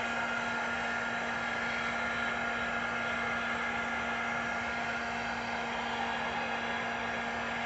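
Electric heat gun running steadily: a constant whir and rush of blown air with a low steady hum underneath.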